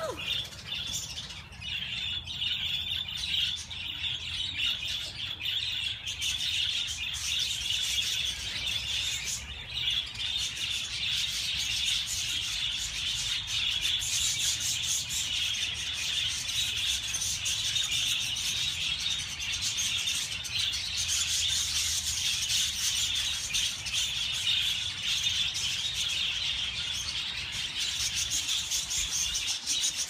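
A large flock of budgerigars chattering and chirping, many birds at once in a dense, steady chorus.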